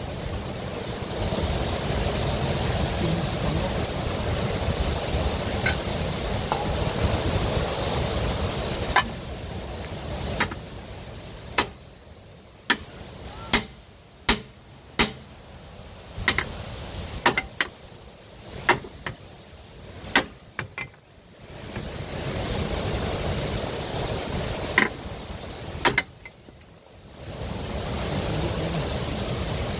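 Hammer blows on steel, about a dozen sharp strikes roughly a second apart starting about a third of the way in, with two more near the end, knocking at the front lower ball joint of a Nissan Juke's wishbone: the joint is rusted into the knuckle and does not give. A steady rushing noise fills the stretches before and after the blows.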